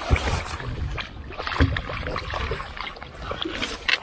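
Water splashing and sloshing at the side of a boat as a hooked walleye is landed in the net, with two dull knocks against the boat, near the start and about a second and a half in.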